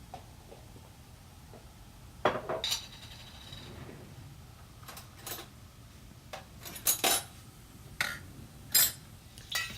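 Kitchen utensils clinking and knocking against dishes and cookware, about ten separate strikes from about two seconds in, one ringing briefly.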